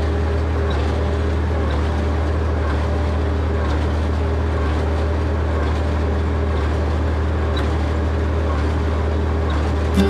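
Farm tractor engine running at a steady speed, a low even drone that holds without change.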